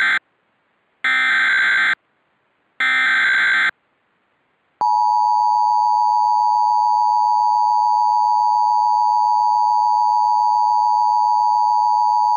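Emergency Alert System SAME header: three buzzing data bursts about a second each, the first already under way and the next two about a second apart. About five seconds in, the steady two-tone EAS attention signal begins and holds.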